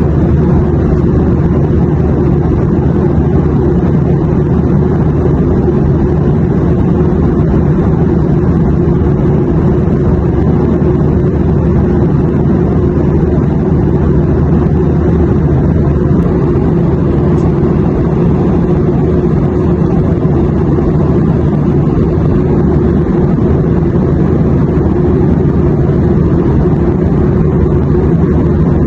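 Airliner cabin noise: a steady low rumble of engines and airflow with no changes, strongest in the low end.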